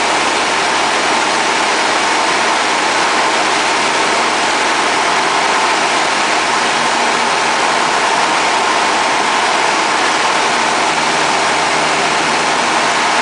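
Light single-engine airplane's engine and propeller running steadily at cruise, heard from inside the cockpit as a dense, even noise with a faint hum underneath.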